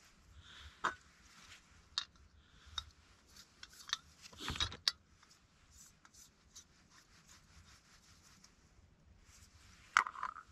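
Camping cook gear being handled by hand: scattered small clicks and light rubbing of metal and plastic parts, with a short rustle about halfway through and a sharper click near the end.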